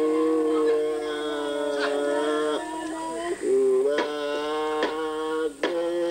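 Tiwi Kulama ceremonial singing: a voice chanting long, held notes that shift to a new pitch every second or two, with a few sharp knocks struck among them.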